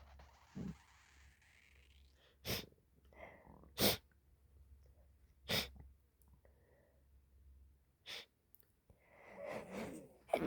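A person with the flu giving four short, sharp, stifled sneezes a second or more apart, then catching, gasping in-breaths near the end as a bigger sneeze builds.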